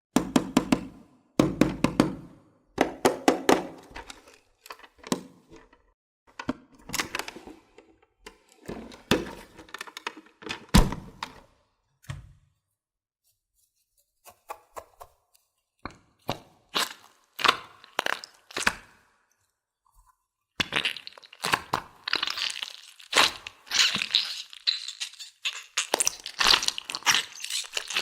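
Candy and hard plastic pieces being handled, with sharp knocks, clatters and low thunks, then from about twenty seconds in a dense crinkling and tearing, like candy packaging being crumpled and torn open.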